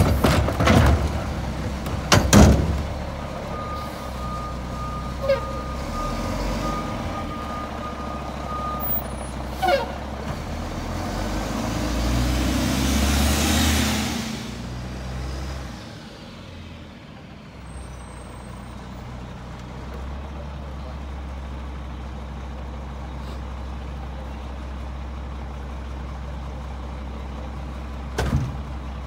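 Mack LE garbage truck's diesel engine running, with sharp knocks in the first couple of seconds as the Curotto-Can arm sets an emptied cart back down. A high steady warning tone sounds for about five seconds, the truck noise swells around the middle, then the engine settles to a steady idle, with one sharp knock near the end as something is thrown into the Curotto-Can.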